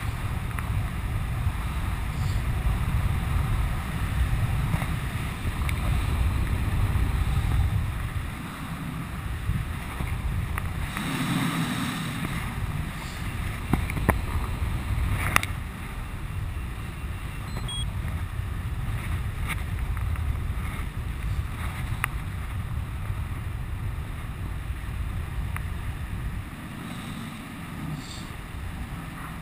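Wind buffeting a helmet camera's microphone in flight under a skydiving canopy: a low rumble that swells and eases, with a couple of sharp clicks about halfway through.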